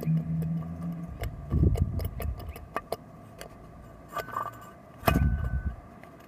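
Light metallic clicks and clinks with a couple of heavier knocks, as the removed, oil-fouled turbocharger and its metal parts are handled. A low steady hum cuts off about a second in.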